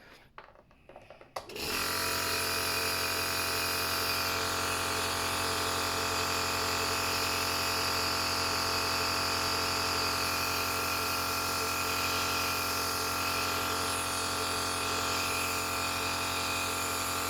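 Omron C102 Total compressor nebulizer switched on about a second and a half in, then running steadily: an even buzzing motor hum with a hiss of air over it.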